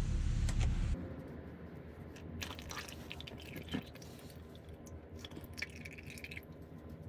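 Handling noises from work under the van: scattered clicks and rustles, with a short scrape about six seconds in. A steady hiss fills the first second, then cuts off suddenly.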